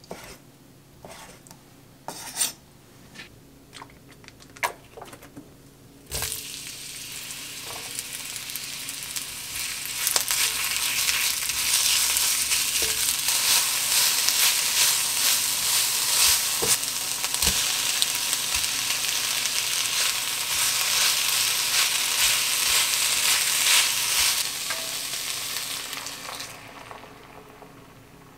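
A knife chopping bacon on an end-grain wooden cutting board, a few sharp knocks, then sliced onion and garlic sizzling in a black cast-iron pan as a wooden spatula stirs them. The sizzle starts about six seconds in, grows louder, and dies away near the end.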